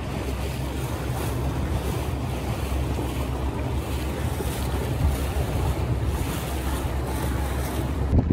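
A boat under way: a steady low engine hum under water rushing along the hull, with wind buffeting the microphone. The sound changes abruptly to a louder rumble just before the end.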